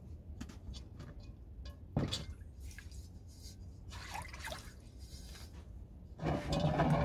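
Water sloshing in a cast-iron pot as it is gripped and lifted, with a knock of the pot about two seconds in and a louder rush of sloshing near the end.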